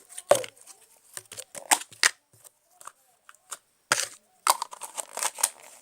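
Slime being squeezed and worked in the hands, making an irregular run of sharp, wet clicks and crackles.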